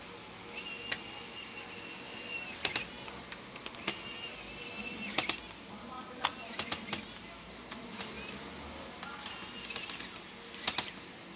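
Pen-style electric precision screwdriver driving screws back into a laptop around its cooling fan: a high-pitched motor whir in about six short runs of one to two seconds each, with a few sharp clicks between them.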